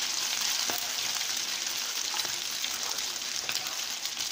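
Tuna and oat patties frying in hot vegetable oil in a skillet, on their second side: a steady sizzle with a few scattered pops.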